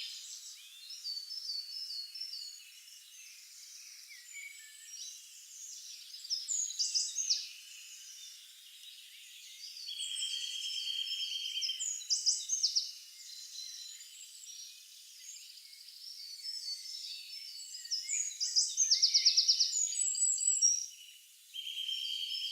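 Forest bird chorus: many overlapping high chirps, whistles and rapid trills, joined twice by a steady, evenly pulsed buzzing trill, with no low sounds at all.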